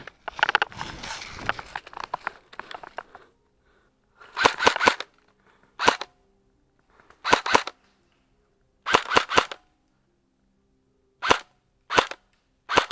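Airsoft rifle firing in short rapid bursts and single shots, with quiet gaps between them, from about four seconds in. Before the shooting, brush rustles.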